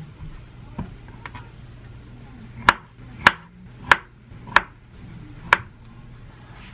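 Small kitchen knife chopping avocado on a wooden cutting board: two light taps, then five sharp knife strikes against the board, a little over half a second apart.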